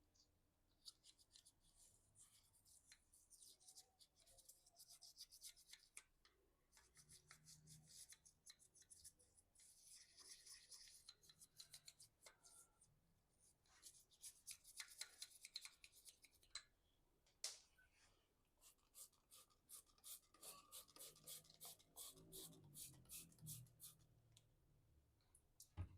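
Brush scrubbing a glass ink tank: faint, scratchy strokes in irregular bursts, settling into a steady run of about four strokes a second near the end.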